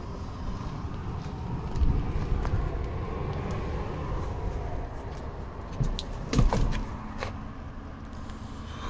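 Low, steady outdoor rumble, with a cluster of sharp clicks and knocks about six seconds in, the kind made by handling a car door or the camera.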